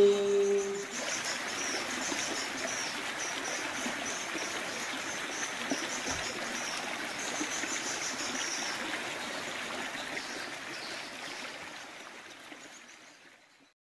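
Small woodland stream cascading over rocks in a little waterfall: a steady rush of water that fades out near the end. A held sung note tails off in the first second.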